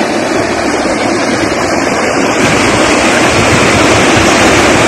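Steady loud rush of fast-flowing floodwater pouring across flooded ground, with wind buffeting the microphone.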